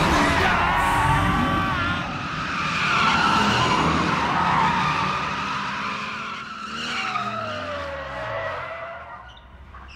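A car cornering hard: its tires squeal in wavering screeches over the engine revving up and down, and the sound fades away over the last few seconds.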